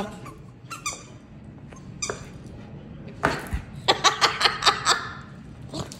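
Small curly-coated dog making short playful growl-yips in a ball game, with a quick rhythmic run of them about two-thirds of the way through and a single sharp knock just before.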